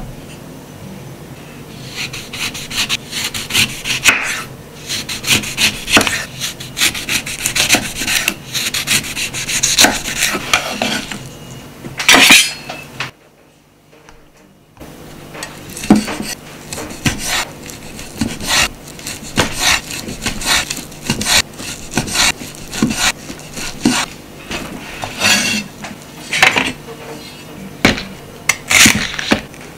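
Kitchen knife slicing a lemon into rounds and then a block of chashu pork on a wooden cutting board: repeated cutting strokes and knife taps on the board, broken by a short quiet gap about thirteen seconds in.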